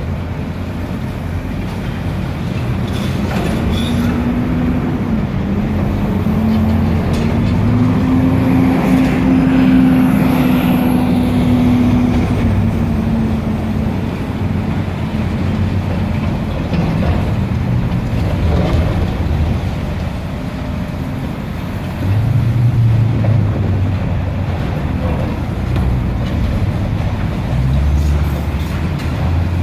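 Heavy demolition excavator's diesel engine and hydraulics working under load: a steady low rumble with a humming tone that rises and falls for several seconds, and a few faint knocks.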